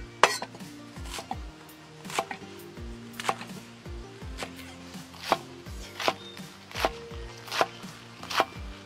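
Cleaver chopping Chinese cabbage on a wooden chopping board: about ten crisp, steady chops, a little more than one a second.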